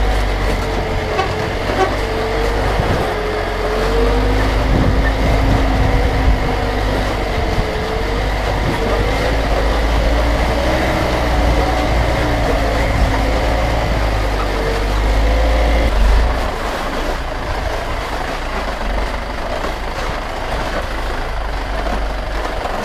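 Heavy vehicle engine running on the move, a loud low rumble with an engine note that rises and falls. The rumble drops off about two-thirds of the way through.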